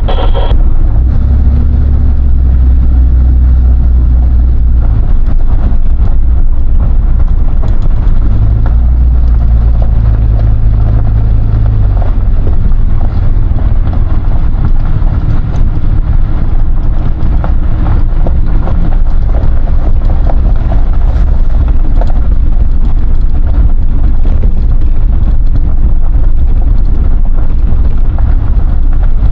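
Vehicle driving: a loud, steady low rumble of engine and road noise, with the engine note shifting a few times in the first half.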